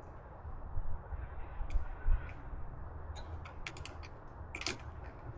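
Scattered sharp plastic and metal clicks as a battery charger and its clamps are handled and hooked up to a car battery, with a cluster of clicks past the middle and another near the end.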